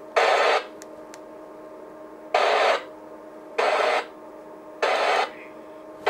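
Four short bursts of FM radio static from a receiver's speaker as a handheld UHF transceiver is keyed, each about half a second and cutting on and off sharply, over a steady low hum.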